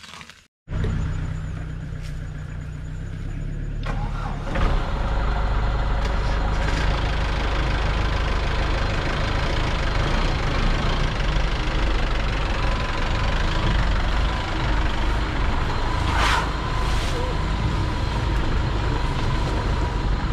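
Safari jeep's engine running steadily. It starts just under a second in and gets louder about four seconds in, as if pulling away or revving. A short sharp sound cuts through about sixteen seconds in.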